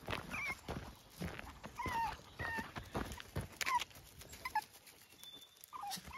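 Puppy giving short, high chirping yips, about six of them, while running, over footsteps crunching on gravel.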